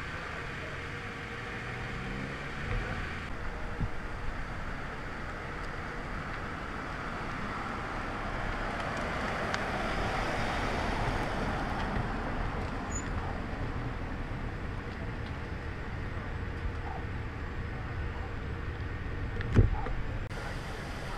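A motor vehicle passing close by, a steady road and engine noise that swells about ten seconds in and fades, with a sharp thump near the end.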